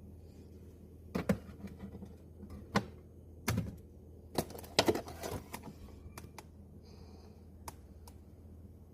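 Irregular knocks and clicks of containers and items being handled and set down, with a cluster of clattering about five seconds in and a few lighter ticks near the end, over a steady low hum.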